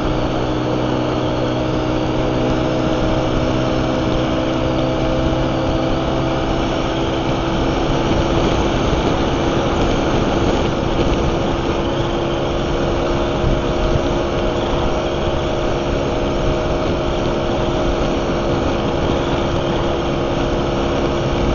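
Honda CG motorcycle's single-cylinder engine running steadily at cruising speed, heard from on the bike with wind and road noise rushing over the microphone.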